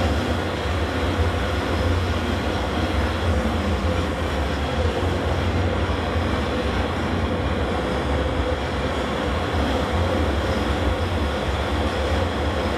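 Breddo LDT150 stainless steel liquefier running: its 25 hp bottom-mounted motor driving the bottom impeller, with a steady low hum and an even mechanical whir.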